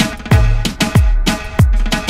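Music with a steady beat: deep kick drums about twice a second under a sustained chord.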